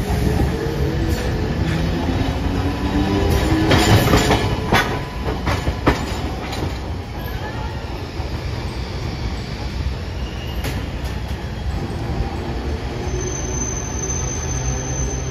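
Hiroden streetcar No. 707 running on the track and moving off. Its wheels give a run of sharp clacks over rail joints and points about four to six seconds in, over a steady low rumble.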